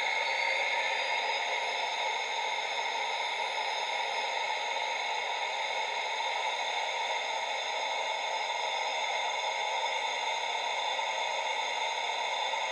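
Model railway DCC sound decoder playing the steady hissing whine of the GT3 gas turbine locomotive through a small 20x20x7mm speaker, with the model standing still so the turbine is running at idle. A thin high whine rises slowly in pitch at the start.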